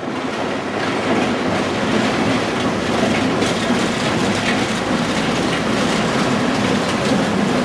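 Wuppertal Schwebebahn suspension railway train running, its steel wheels on the overhead rail giving a steady running noise with a low hum and faint clicks in the middle.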